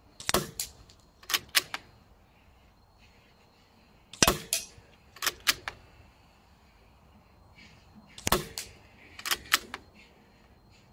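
A moderated Weihrauch HW110 .22 air rifle fired three times, about four seconds apart, each shot a short sharp crack followed about a second later by a second quick clatter of clicks.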